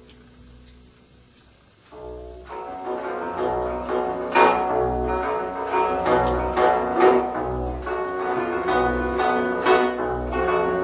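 Background music: faint for the first two seconds, then plucked-string music comes in with a steady low bass pulse under it.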